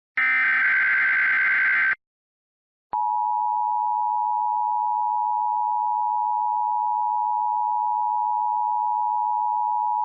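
Emergency Alert System SAME header data burst, a harsh warbling digital screech, for about two seconds. After a brief silence it is followed about three seconds in by the EAS attention signal: a steady two-tone (853 and 960 Hz) tone held without a break, announcing an alert, here a required monthly test.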